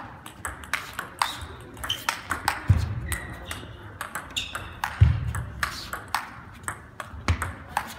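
Table tennis rally: sharp clicks of the celluloid ball on bats and table several times a second, one bat faced with long-pimpled rubber. Fainter clicks from rallies at other tables come in between, and three low thuds fall about two and a half seconds apart.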